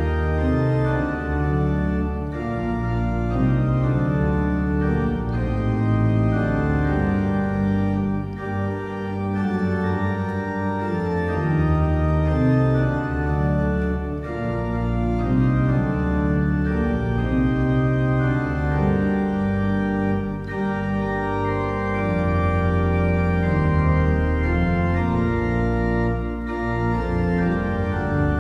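Organ playing a hymn in full sustained chords over a low bass line, the chords changing every second or two.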